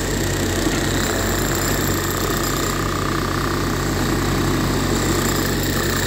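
Tata Hitachi EX70 excavator's diesel engine running steadily, with a faint high whine over it through the middle.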